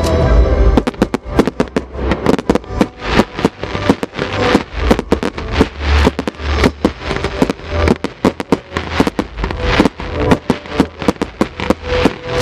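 Fireworks display: a rapid barrage of aerial shell bursts, several sharp bangs a second, with the dense salvo starting about a second in.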